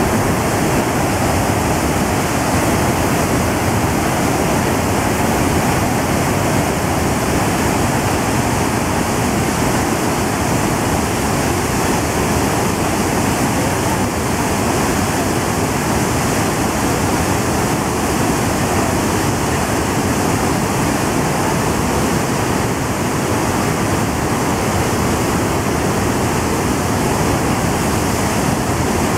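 Water released through the open spillway gates of the Imatra hydropower dam, rushing through the Imatrankoski rapids channel as a loud, unbroken noise of churning whitewater.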